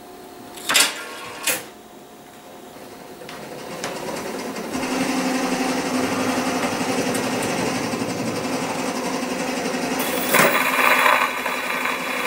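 Grosses Mammuth Müntz cabinet gramophone being set playing. Two sharp mechanical clicks come about a second in. Then the turntable runs and the needle rides the record's lead-in, making a steady scratchy surface noise and whir that builds over a couple of seconds and holds, with a louder crackle about two seconds before the end.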